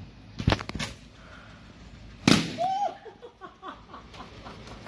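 A quick cluster of sharp knocks as a bundle of balloons carrying an egg is pushed out past a window's metal rail, then one loud sharp bang a little over two seconds in as the balloon egg-drop bundle comes down.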